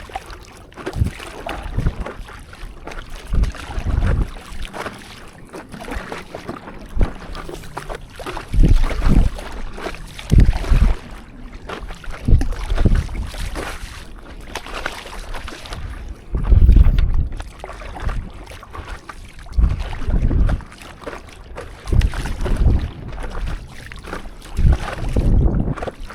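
Water sloshing and splashing around a stand-up paddleboard on the sea, with wind rumbling on the microphone in irregular gusts.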